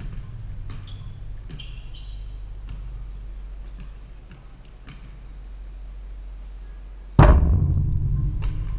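Basketball play in a gym: scattered dribbles and a few brief sneaker squeaks, then about seven seconds in a sudden loud thud as the ball strikes the backboard the camera is mounted on, followed by a long low rumble as the backboard rings.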